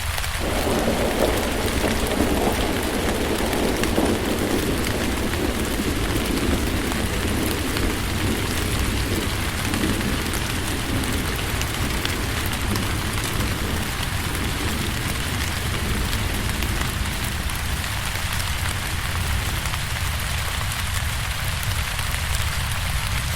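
Steady rain falling, a dense even patter. A low rumble comes in just after the start and slowly fades away over the following twenty seconds or so.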